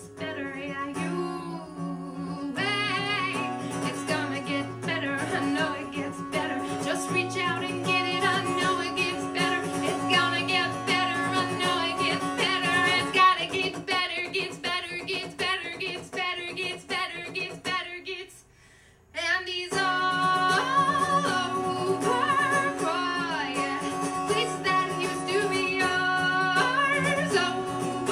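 Woman singing with acoustic guitar, live. The music stops for about a second roughly two-thirds of the way through, then picks up again.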